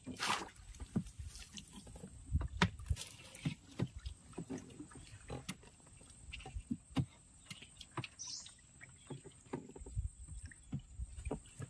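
Irregular knocks, taps and small splashes of work in a small wooden boat on the water while a baited crab line is hauled in, with a sharper knock just after the start.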